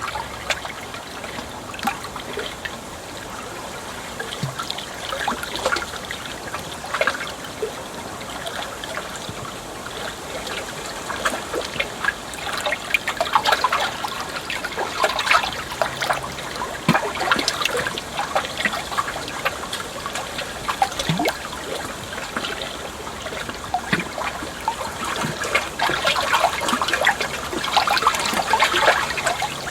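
Water trickling and splashing continuously, with many small irregular splashes, busier in the second half.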